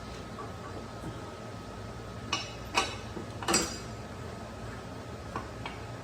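Steel bolt clinking against metal as it is worked back through the mower's front caster wheel and fork: three sharp clinks in the middle, then two light taps near the end, over a steady low hum.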